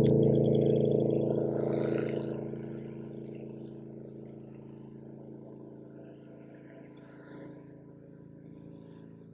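A boat engine's steady hum, loud at the start and fading over the first few seconds to a faint, even drone that holds one pitch.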